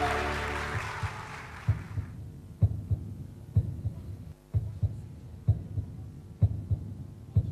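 The end of a song fades out, then a heartbeat sound effect starts: soft double thumps about once a second.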